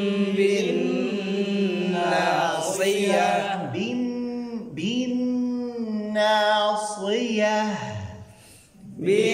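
A man reciting the Quran solo in Arabic, chanted with long held notes that rise and fall in pitch. He breaks off briefly for a breath about eight seconds in.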